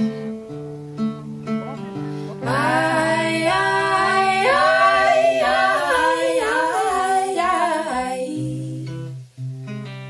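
Folk song playing: acoustic guitar picking, with several women's voices singing together in harmony from about two and a half seconds in until about eight seconds in.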